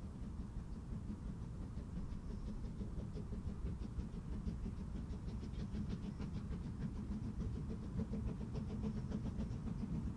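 Narrow-gauge steam train running past at a distance, growing slowly louder as it nears: a low rumble with a faint, rapid rattle of beats and clicks above it.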